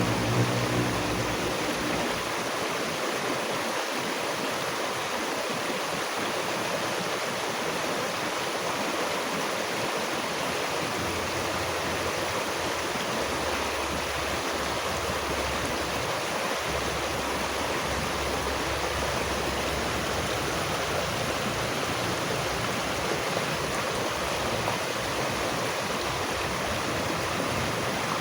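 Steady rushing of a flowing stream, an even wash of water noise without breaks. A low hum is heard under it for about the first two seconds, then fades.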